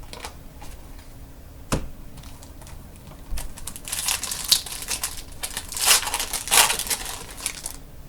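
Trading cards and foil pack wrappers being handled: a couple of sharp clicks, then about four seconds of crinkling and rustling.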